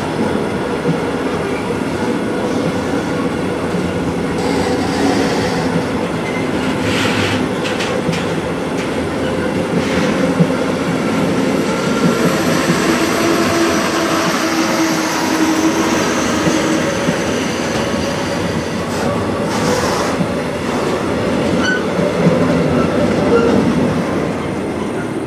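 Electric-hauled intermodal freight train of container and swap-body wagons rolling past close by: steady rumble and clatter of wheels on rail, with sharp knocks over rail joints and thin squealing tones from the wheels at times. The sound fades at the end as the last wagon goes by.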